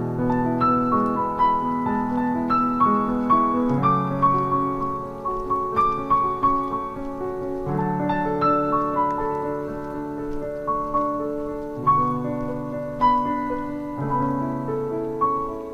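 Background piano music: single melody notes over low chords that change every few seconds.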